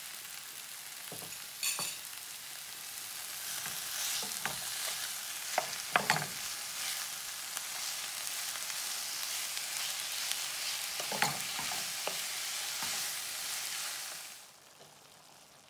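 Beef mince browning in a frying pan, sizzling steadily as a wooden spoon stirs it, with a few knocks of the spoon against the pan. The sizzle cuts off suddenly near the end.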